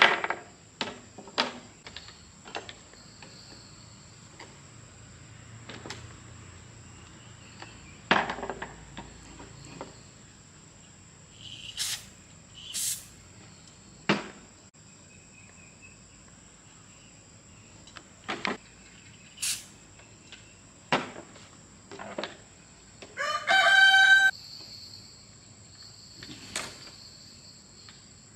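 Scattered clicks and knocks of hand work, with a rooster crowing once, loudly, for about a second near the end. A steady high insect drone runs underneath.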